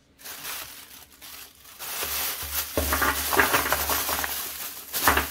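Thin plastic bag crinkling while frozen mini meatballs are pushed out of a silicone-bottomed ice-cube tray, with quick clicks and knocks as they pop loose. It grows louder from about two seconds in.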